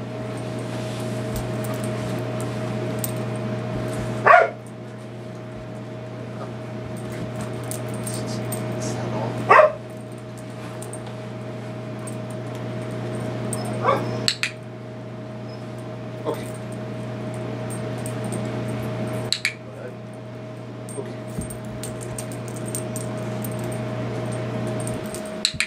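A dog barking in single sharp barks every few seconds, about six in all, over a steady background hum.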